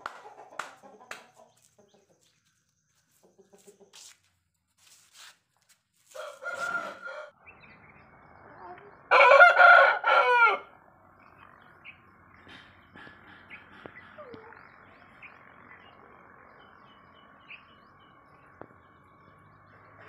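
Parrot-beak aseel rooster crowing once, loud and about a second and a half long, near the middle. A shorter, softer call comes a few seconds before it.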